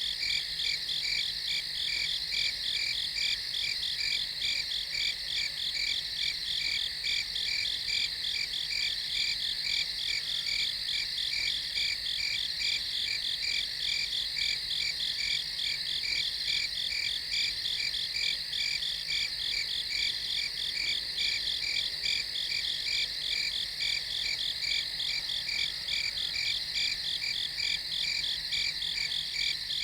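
Crickets chirping at night in a steady chorus, an even, rapid pulsing that does not let up.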